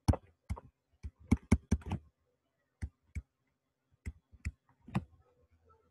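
Pen stylus clicking and tapping against a tablet surface during handwriting: a quick run of sharp taps in the first two seconds, then single taps every half second or so.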